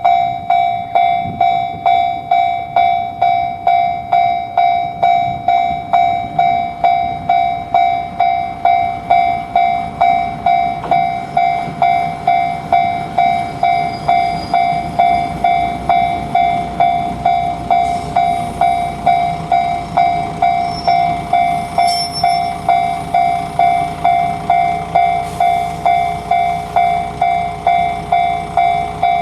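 Japanese level-crossing alarm bell ringing its "kan-kan", one ringing tone struck about twice a second at a steady beat. From about halfway the low rumble of a train joins in.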